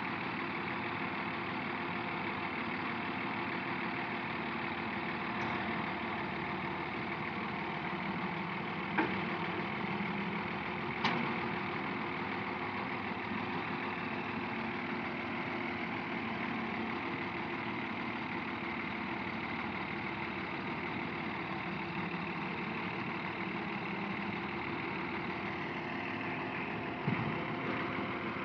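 Diesel engines of a Hyundai wheeled excavator and a farm tractor running steadily while the excavator loads sand into the tractor's trolley. A few sharp knocks stand out, two in the first half and one near the end.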